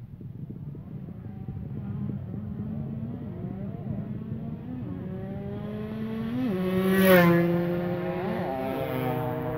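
Drag-racing motorcycle at full throttle on its open racing exhaust, coming up the strip and passing close by. Its engine note climbs in pitch in several steps, each ending in a brief dip, as it grows louder. It peaks sharply about seven seconds in as the bike goes past.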